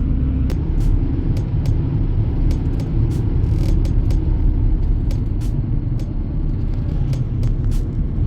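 Road and engine noise heard inside a moving car: a steady low rumble with frequent light ticks throughout.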